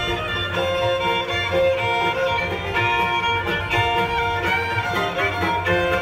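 Live bluegrass band playing an instrumental break, the fiddle carrying the melody in long bowed notes over acoustic guitar, banjo and a steady upright-bass pulse.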